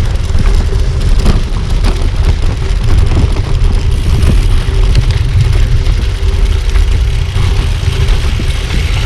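Riding noise from a bicycle on the move: wind buffeting the microphone and a low tyre rumble, with a faint steady hum and frequent short knocks and rattles as the bike goes over bumps.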